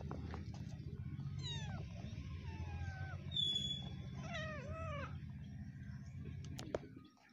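Small kitten mewing while a macaque pins it down: a few short falling cries about a second and a half in, then a louder run of arched cries around four to five seconds, over a steady low hum.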